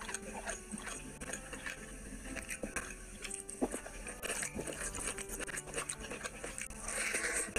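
Close-miked eating by hand: chewing, and fingers mixing rice and curry gravy on a plate, giving many small wet clicks and scrapes.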